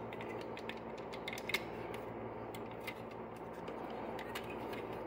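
Light clicks and taps of the hard plastic parts of a Transformers Earthrise Snapdragon figure being handled and pegged into place, with one sharper click about a second and a half in, over a steady background hiss.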